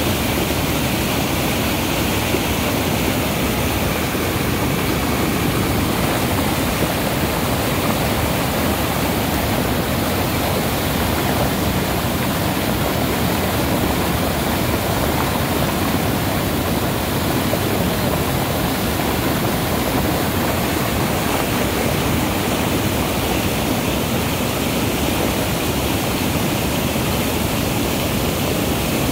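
Steady rushing of river water pouring over a low weir's curved crest and churning white in the pool below.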